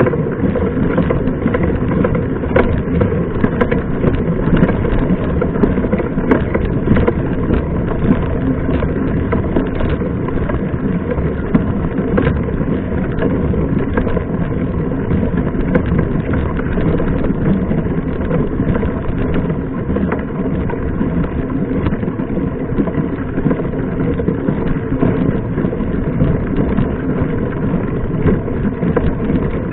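Mountain bike being ridden on a dirt road: a steady rush of wind on the microphone and rolling tyre noise, with frequent small rattles and knocks from the bike.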